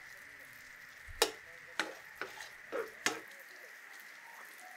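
Metal spatula knocking and scraping against a frying pan while food is stirred, about five sharp clinks in the space of two seconds, over a faint steady sizzle of frying.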